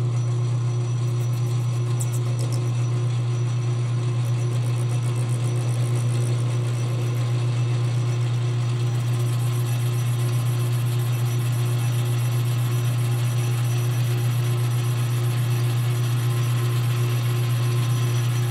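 Metal lathe running steadily with a strong low hum while turning a PVC pipe fitting. From about halfway a faint hiss joins as the cutting tool takes a light cleanup cut on the plastic.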